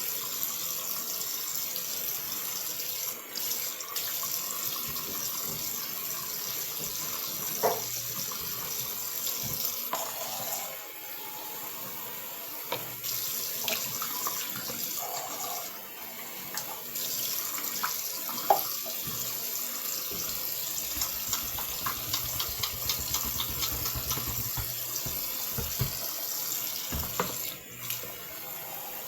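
Faucet running steadily into a sink as it is cleaned, with a few light knocks and clinks now and then.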